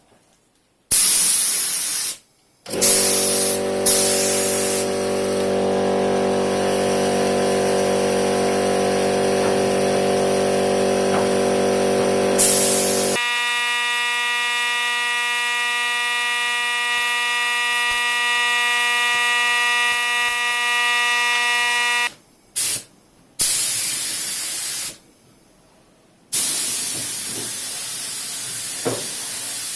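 Compressed-air spray gun hissing in bursts, each starting and stopping sharply. For a long stretch in the middle a steady pitched machine sound runs with it, and its pitch changes about halfway through.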